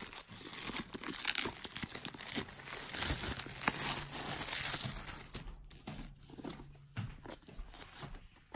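Plastic shrink wrap being torn and pulled off a DVD box set, crinkling and crackling for about five seconds, then dropping suddenly to quieter handling of the box.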